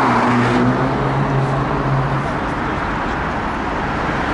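Steady city road traffic noise from cars passing below, with one vehicle's engine humming at a steady pitch for about the first two seconds.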